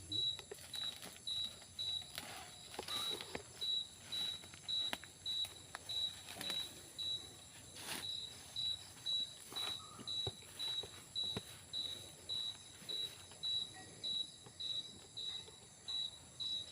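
A cricket chirping steadily, short high-pitched chirps about twice a second, with a few faint clicks in between.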